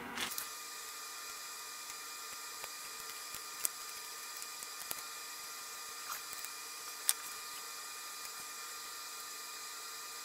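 A few scattered light clicks and taps of small metal carburetor parts being handled and fitted together by hand, the sharpest about seven seconds in, over a steady background hum.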